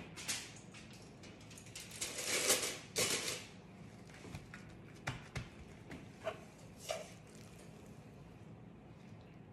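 Gloved hands pressing and patting out a round of oiled dough on a stone countertop: a few soft swishing slaps in the first few seconds, the longest a little after two seconds in, then several short light taps.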